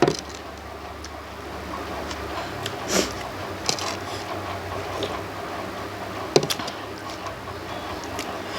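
A person eating mango chutney: wet, squishy mouth and eating sounds, with a few sharp clicks or taps scattered through.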